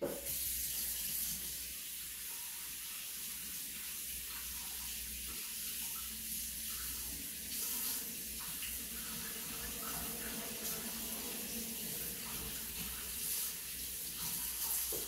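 Water tap running steadily into a sink while a paintbrush is rinsed under it.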